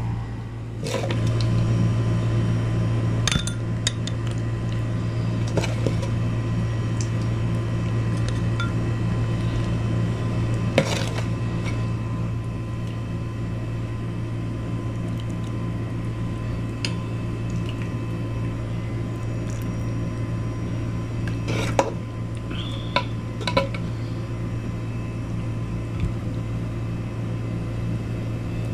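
A few scattered clinks of utensils against pots and dishes over a steady low hum.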